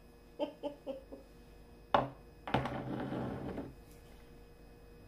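Glass bottle of Cholula hot sauce being shaken over a taco: a quick run of about four short knocks in the first second, a sharp louder knock about two seconds in, then about a second of rougher noise as the handling goes on.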